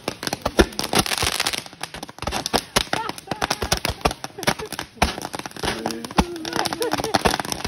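Fireworks going off in quick succession: many sharp bangs and pops, one after another.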